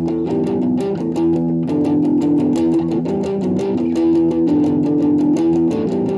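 Fernandes Revolver Pro electric guitar played through an amplifier, strumming chords in a steady rhythm.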